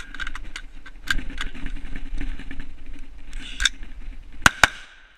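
Several shots from an AR-style rifle fired at the targets, with the last two a quick pair near the end and the loudest. Steady background noise runs underneath.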